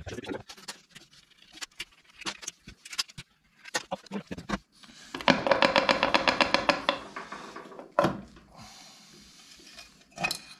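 Tools and metal parts clicking and knocking during work on a moped gearbox, with a burst of rapid, evenly spaced clicking lasting about a second and a half midway through and a single sharp knock after it.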